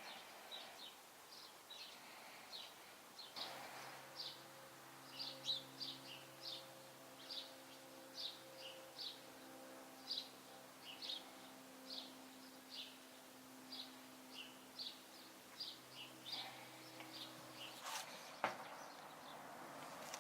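Small birds chirping in short, repeated calls about two or three times a second, faint, over a soft steady low hum whose pitch shifts now and then.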